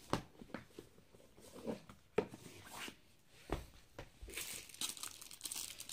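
Paper and plastic packaging being handled by hand: scattered soft rustles and light taps of paper sheets, then from about four seconds in, a steady crinkling of plastic wrap.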